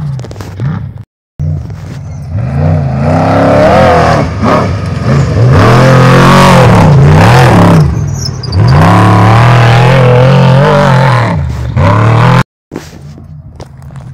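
Trophy Truck race engine revving hard as the truck races past close by, its pitch climbing and dropping again and again with throttle and gear changes. The sound cuts out abruptly for a moment about a second in and again near the end.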